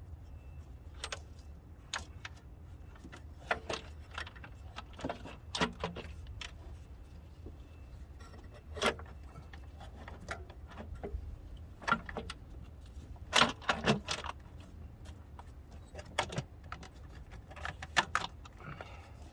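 Metal tools and parts clinking and clattering in irregular clicks and knocks, with a cluster of louder knocks about two-thirds of the way through, over a steady low hum.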